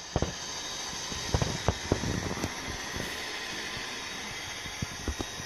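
HO-scale model locomotive running along the layout's track: a steady whirring hiss with scattered irregular clicks.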